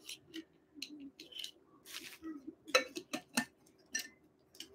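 Light clicks and clinks of a stainless steel tumbler, its lid and a plastic straw being handled, a dozen or so short knocks spread unevenly.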